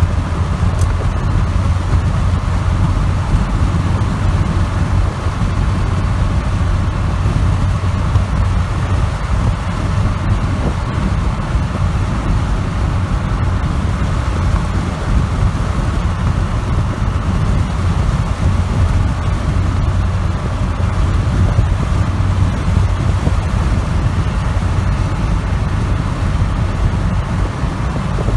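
Motor vehicle engine running steadily: a loud, even low drone with no changes.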